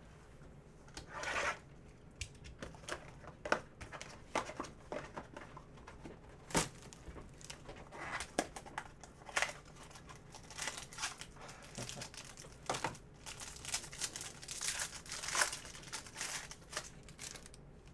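Card pack wrapping crinkling and tearing as packs of baseball cards are ripped open, with the packaging rustling in short, irregular bursts.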